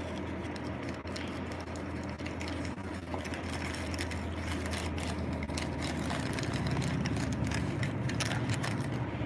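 Bubble wrap and tissue paper crinkling and rustling in irregular crackles as a hand rummages in a cardboard box, over a steady low background hum.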